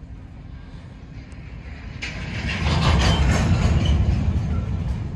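Loaded covered hopper cars of a freight train rolling past, the steel wheels on the rail making a steady low rumble with clatter. It swells to a louder clattering passage about two seconds in.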